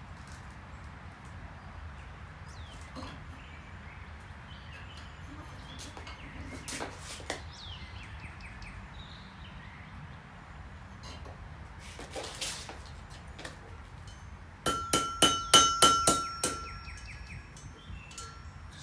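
Blacksmith's hammer striking hot iron on an anvil: a quick run of about eight ringing blows about fifteen seconds in, after scattered lighter taps and clinks.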